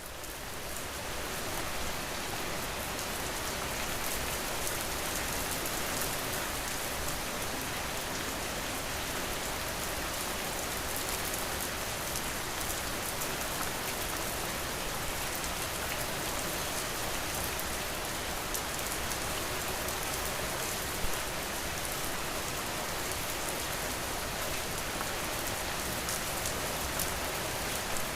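Steady rain falling, an even hiss with scattered drops pattering on a surface, fading in over the first second or two.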